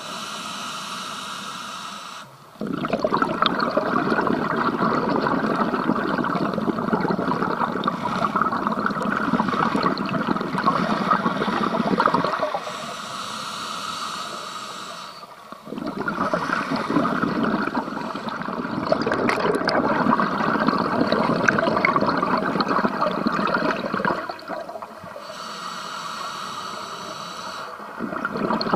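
Scuba diver breathing through a regulator underwater: short, quieter in-breaths alternating with long exhales of bubbling and rushing water, about a breath every twelve seconds, with a new exhale starting near the end.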